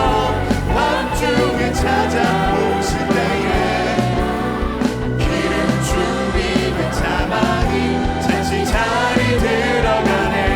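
Live contemporary worship music from a church praise band, with singing over the band.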